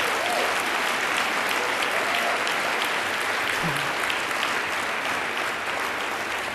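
A large audience applauding, a dense, steady patter of many hands clapping that eases slightly toward the end.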